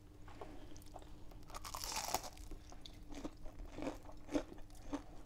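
Close-up crunching and chewing of oven-baked nuggets with a crisp panko-and-crushed-crisps coating. Scattered crisp crackles, densest about two seconds in.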